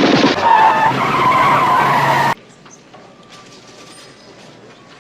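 Car-chase sounds of tires squealing and skidding, loud with wavering screeches, cutting off abruptly about two seconds in; low background hiss follows.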